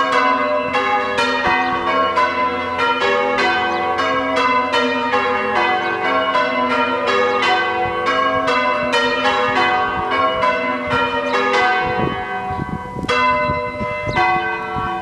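Six church tower bells being rung one after another in a rapid, even sequence, their tones overlapping and ringing on. The strikes thin out briefly about twelve seconds in, then pick up again.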